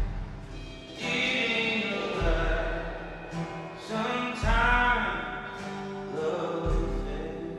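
Live acoustic duo: a man singing over a strummed acoustic guitar, with a drum kit played with brushes and a kick drum thumping about every two seconds.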